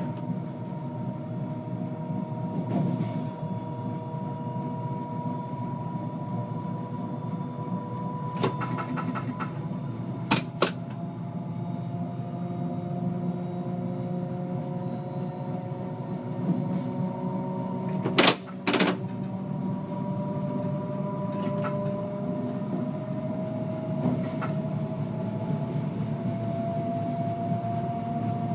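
NMBS AM62 classic multiple unit heard from the cab while running, with a steady rumble and a traction-motor whine that climbs slowly in pitch as the train gains speed. Sharp clacks of the wheels over rail joints or points come about ten seconds in and again, a loud pair, a little past halfway.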